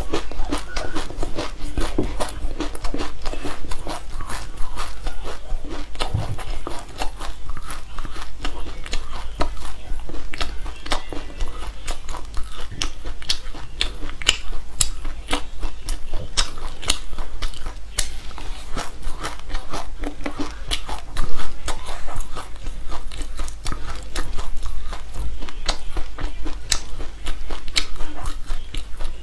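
Close-up crunching and chewing of a mouthful of raw black and white sesame seeds: a rapid, irregular stream of small crisp crackles, over a steady low hum.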